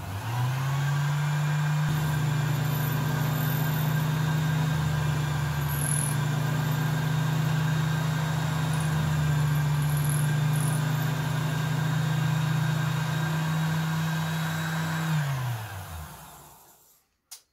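Sherline miniature lathe's motor switched on, spinning up quickly to a steady hum with a faint high whine, while the eyelet hole in a cello bow frog is drilled out. Near the end it is switched off and winds down, the pitch falling away.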